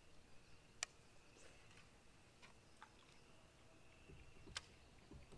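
Near silence with two sharp clicks, one about a second in and one near the end, over a faint steady high tone.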